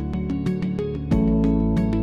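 Instrumental background music: held chords under a fast, even ticking beat, with a new, louder chord coming in about a second in.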